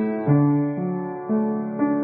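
Background instrumental music, held chords changing about twice a second.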